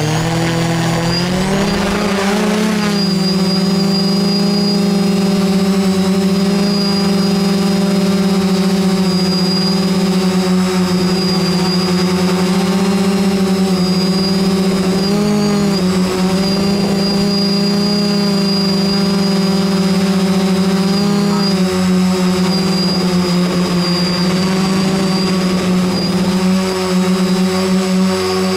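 Brushless electric motors and propellers of a multirotor quadcopter, heard through its on-board camera. The motor whine rises in pitch over the first two seconds, then holds steady with brief dips and wobbles as the throttle shifts.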